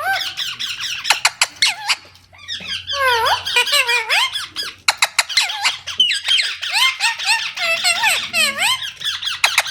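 Parrot squeaking and chirping in a rapid, nonstop stream of high calls and whistles that sweep up and down in pitch, with short clicks between them and a brief lull about two seconds in.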